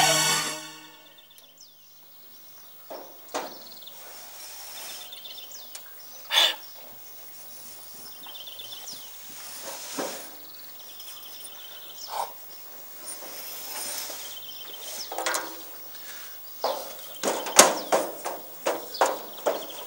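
Outdoor garden ambience with birds chirping in short high trills, and scattered knocks and scuffs that come thicker near the end as a man climbs on a playground slide.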